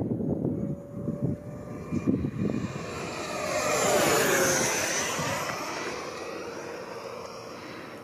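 Electric ducted fan of a Freewing F9F-8 Cougar 80mm RC jet whining in a fly-by overhead, building to loudest about four seconds in, then fading as the pitch drops. Wind gusts on the microphone in the first couple of seconds.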